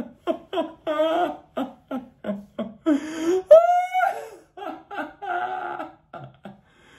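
A man laughing heartily in a run of short bursts, with a long high-pitched laugh about halfway through.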